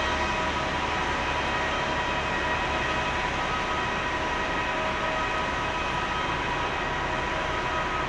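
Airbus A321neo airliner during pushback: a steady turbine whine, several high tones held over a constant rushing noise, with no change in level.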